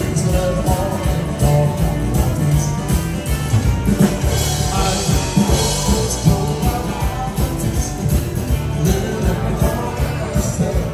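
Live dansband music from a band with electric guitars, keyboard and drums, with singing over it, played loud through the hall's PA speakers.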